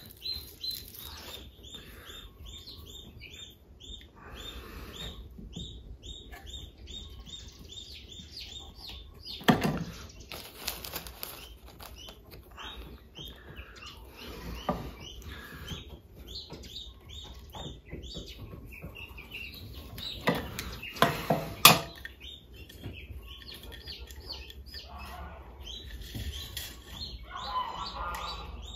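A small bird chirping over and over in quick, even, high notes, several a second. Under it are clicks and rustles of thin stainless steel wire and pliers being handled while wiring a wooden beehive frame, the loudest clicks about ten seconds in and again about twenty seconds in.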